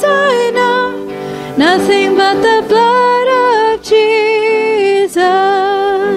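A single voice singing a slow hymn-like melody in long held notes, over soft instrumental accompaniment.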